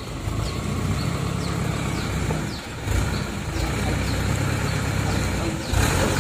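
Diesel dump truck engine running as the truck moves slowly off, getting louder near the end. A short high chirp repeats about twice a second over it.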